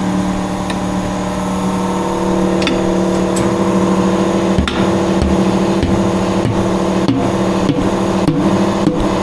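Tyre changer machine's turntable motor running with a steady hum, while the tyre bead is worked off the rim with a tyre iron. Sharp knocks and clicks come through the hum, more often in the second half.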